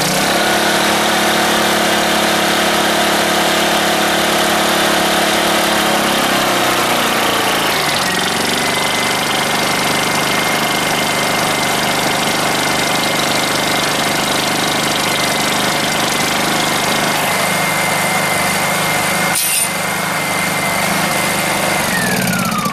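Honda EU2000i inverter generator running with a flexible corrugated hose on its muffler outlet. The exhaust blowing through the hose makes a steady high whistle over the engine hum. About six seconds in, the engine note shifts and the whistle breaks briefly before returning. Near the end the whistle falls steeply in pitch as the engine slows.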